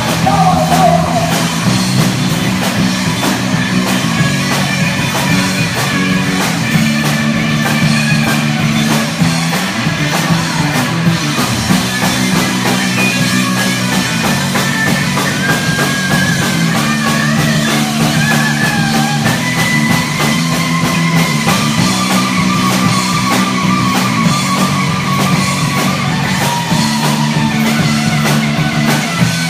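Live rock band playing: electric guitars, electric bass and drum kit, with a lead guitar line weaving above steady low bass notes.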